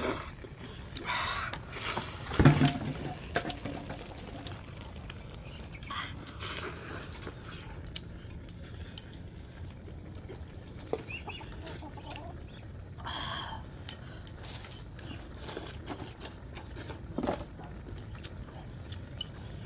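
Eating at a table: metal spoons clinking and scraping against bowls and a wok of soup, with slurping from the spoon, and one louder knock about two and a half seconds in.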